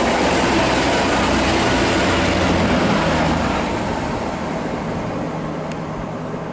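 Diesel multiple unit trains passing close below and running away into the distance. A loud engine and rail rumble fades steadily after about three and a half seconds.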